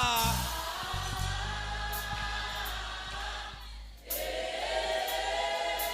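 Congregation and choir singing a Swahili worship song over steady accompaniment: a long held line, a short break about four seconds in, then a second held line.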